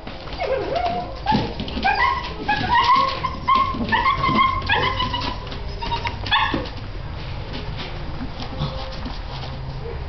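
Seven-week-old Bernese mountain dog puppies whining and yipping in a quick string of short, high calls, some sliding in pitch, which stop after about six and a half seconds.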